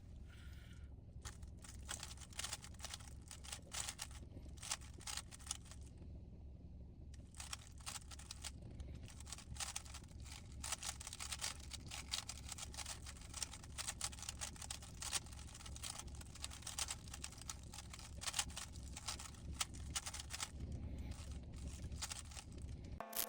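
Rapid, irregular clicking of a GAN 15 speedcube's layers being turned during a blindfolded Rubik's cube solve, with a brief pause about six seconds in, over a low steady hum.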